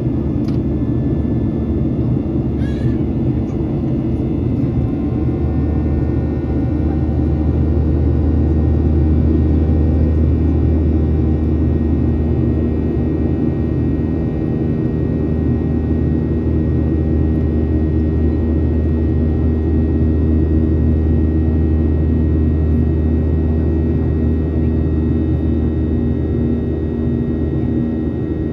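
Steady drone of a Boeing 737-800's CFM56 engines and airflow, heard inside the passenger cabin, with a low hum and several steady tones.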